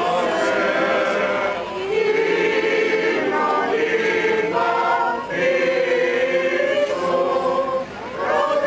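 A group of voices singing Orthodox chant for the Epitaphios procession, in long held phrases with short breaks between them.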